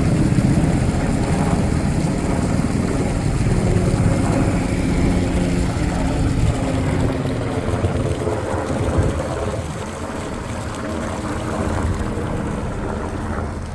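Army helicopters flying over: a steady low drone of rotors and engines that eases off about eight seconds in.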